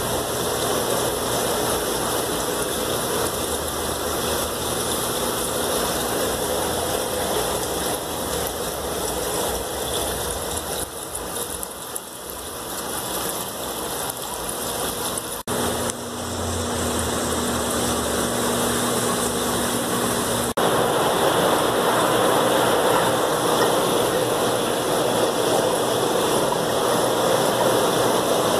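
Steady rushing noise of aquarium pumps and flowing water, changing abruptly twice. A low hum joins for a few seconds in the middle, and the rushing is louder near the end.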